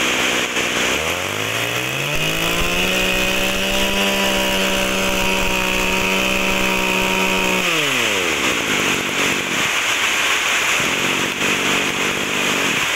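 Mitsubishi TB26 brush cutter's 26 cc two-stroke engine idling, then revved up about a second in and held at high revs for about five seconds before dropping back to idle near eight seconds.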